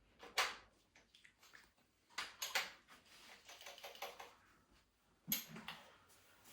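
A few scattered clicks and knocks of tools and metal hardware being handled, with a quick cluster of taps a little over two seconds in and another knock just after five seconds.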